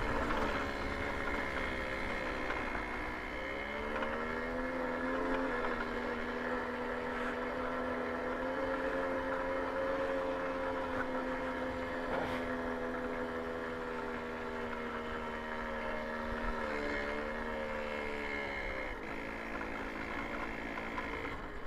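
Babetta 210 moped's small two-stroke single-cylinder engine running while riding a dirt track. Its pitch rises a few seconds in, holds steady, and drops back near the end, over a steady rushing noise.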